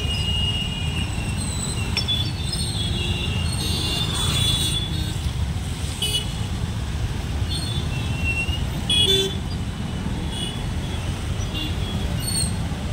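Busy road traffic: scooters, motorcycles and cars running past with a steady low rumble, and short horn toots now and then.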